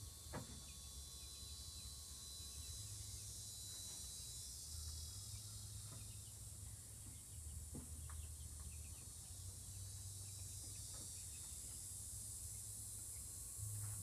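Quiet outdoor rural ambience: a steady high-pitched hiss of insects over a low rumble, with a few faint clicks, one just after the start and one about eight seconds in.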